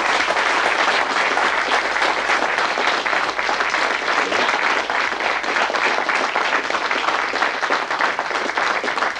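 Audience applauding: many hands clapping together, steady and fairly loud.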